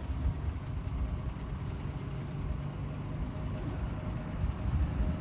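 Heavy diesel engine of construction machinery running steadily with a low rumble.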